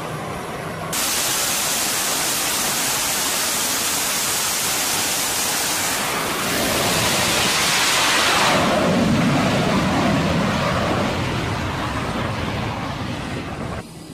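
Fighter jet launching from an aircraft carrier deck at full power. The loud jet noise comes in suddenly about a second in and swells and deepens between about six and nine seconds in as the jet goes off the bow. It then fades and cuts off abruptly near the end.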